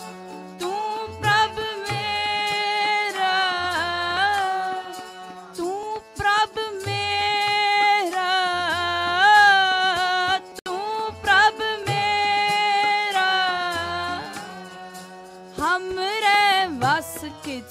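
Gurbani kirtan: voices sing devotional phrases over a harmonium's held drone. Tabla strokes recur underneath.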